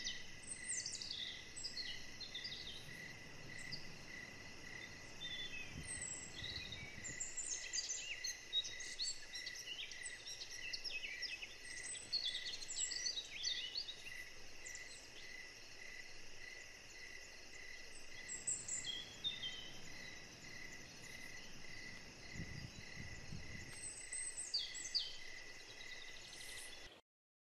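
Outdoor ambience of an insect chirping steadily in an even, repeating pulse, several times every two seconds, with songbirds calling and chirping over it. The sound cuts off abruptly near the end.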